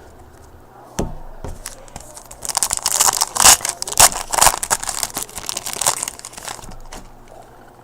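A foil trading-card pack wrapper being torn open and crinkled by hand: a click, then about four seconds of loud crackling and crumpling.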